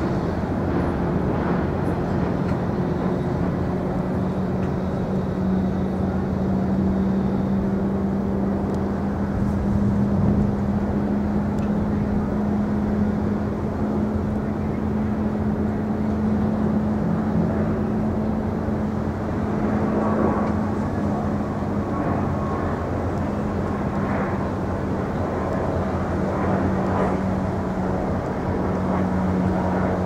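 A steady, low engine drone with a constant hum, over a haze of wind and water noise.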